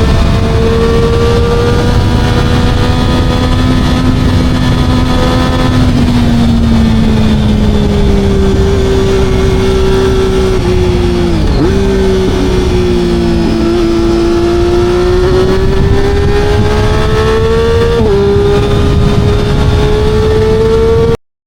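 Motorcycle engine running steadily under way, its pitch slowly falling and rising with the throttle over a low rumble. Its pitch drops sharply and briefly about halfway through and again a few seconds before the end. The sound cuts off suddenly just before the end.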